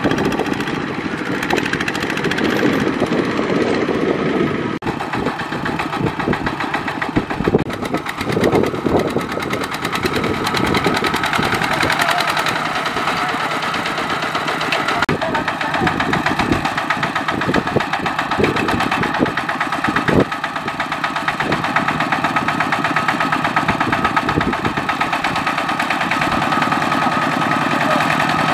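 Single-cylinder diesel engine of a Kubota ZT155 walking tractor running steadily with a fast chugging beat as it hauls a loaded rice trailer through deep mud.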